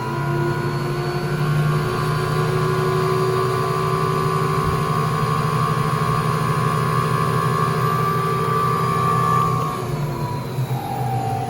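Spin dryer of a 1958 Hoovermatic 3174 twin tub washing machine running at speed with a steady motor hum and whine, its parts freshly greased. About ten seconds in it is switched off and the brake slows the drum, the pitch falling as it runs down.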